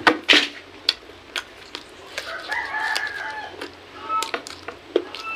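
Close mouth sounds of eating by hand: chewing, lip smacks and sharp clicks, loudest just at the start. A rooster crows in the background, a single drawn-out call about two seconds in, with a few short clucks later.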